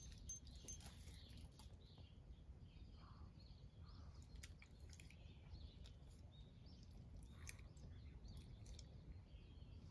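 Near silence: quiet outdoor ambience with a low steady rumble, faint scattered bird chirps and a few small clicks.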